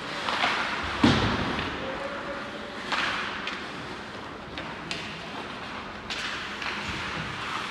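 Scattered sharp clacks and knocks of a stick game in play in a rink. The heaviest is a deep thud about a second in, with lighter knocks near three, five and six seconds.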